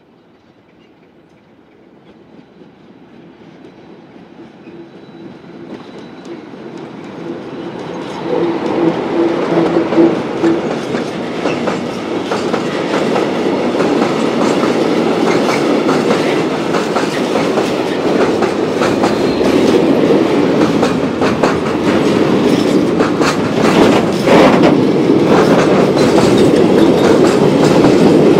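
An ST43 diesel-electric locomotive with its Sulzer diesel engine approaches, growing steadily louder, and passes about eight seconds in. After that, a long freight train of loaded covered wagons rolls by close up: a dense steel wheel rumble with repeated clickety-clack over the rail joints.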